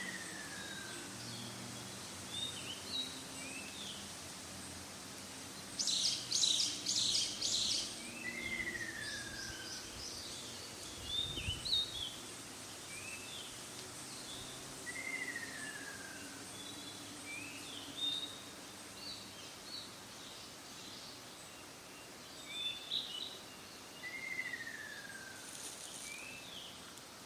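Ruddy kingfisher calling: a falling trilled note about a second long, given four times several seconds apart, among short chirps of other small birds. A louder run of high, quick notes comes about six seconds in.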